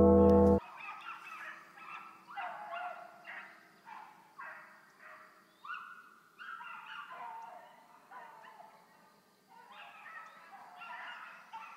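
A pack of rabbit dogs baying on the trail of a running rabbit: a dozen or so short calls from several voices, overlapping and coming in bunches. Loud intro music cuts off suddenly about half a second in.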